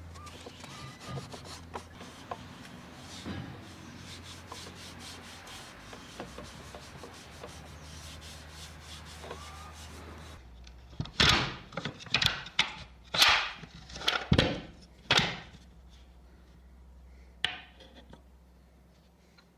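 Wooden tabletop being rubbed or sanded by hand: a steady scratchy rasp with many faint ticks. About ten seconds in the background changes and a run of about eight loud, short strokes follows, with one more near the end.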